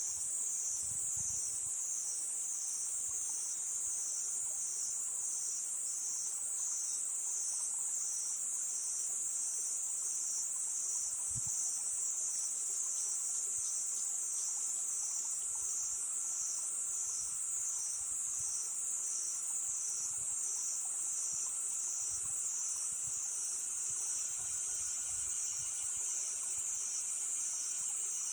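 A chorus of crickets, a continuous high-pitched trilling that swells and fades in a regular rhythm about once a second.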